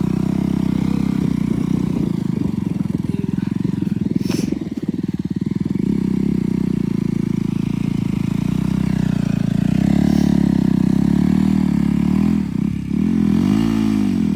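KTM RC 200's single-cylinder motorcycle engine running steadily, with one sharp click about four seconds in. Near the end the revs rise and fall once.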